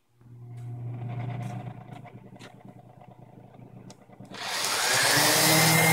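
A dust exhaust fan starts up and runs with a steady low hum, with a few light knocks. About four seconds in, a DeWalt random orbit palm sander switches on, its whine rising as it spins up, and it runs much louder, sanding the wood.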